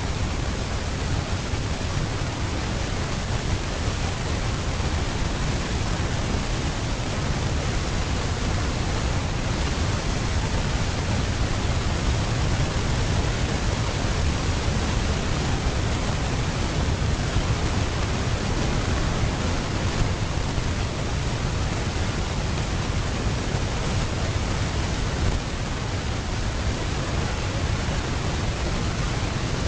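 Steady rushing noise, heaviest in the low end, with no distinct events; no elephant calls, footsteps or splashing stand out from it.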